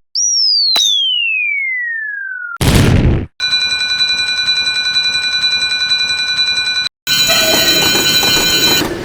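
Cartoon sound effects: a whistle-like tone sliding steadily down in pitch for about two and a half seconds, a short crash, then a steady electronic alarm-like tone held for about three and a half seconds.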